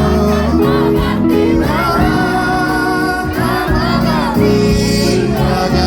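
Live band playing a pop ballad, with sung vocals over steady bass and instrument chords.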